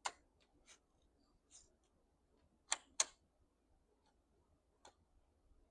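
Scattered faint clicks and taps of an airsoft pistol's parts being handled and worked on, with two sharp clicks about a quarter second apart near the middle.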